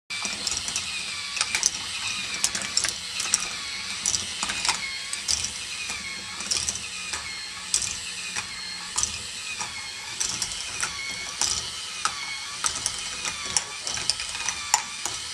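K'nex ball machine running: a steady plastic ratcheting clatter from its motor-driven lift and gears, with a whine that wavers about every second and a half. Many sharp, irregular clicks of plastic balls knock along the track over it.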